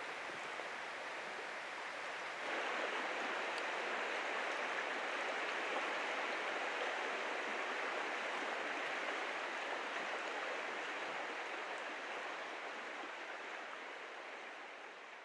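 Steady rush of flowing river water, a little louder from about two and a half seconds in and fading out near the end.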